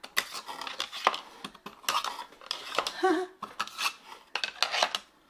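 Plastic diamond-painting trays clicking and clattering against a wooden tray holder as they are pulled out of its slots and handled, a run of short light knocks and scrapes.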